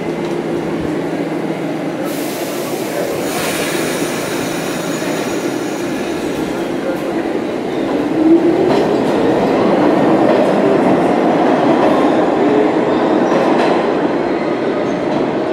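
New York City subway train pulling out along the platform: a steady rumble of wheels on rail with a hiss about two seconds in. About eight seconds in, a motor whine rises in pitch as the train picks up speed.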